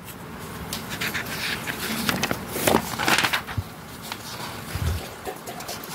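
Paper pages of a Beckett Basketball Monthly magazine rustling as a page is turned by hand, loudest about three seconds in.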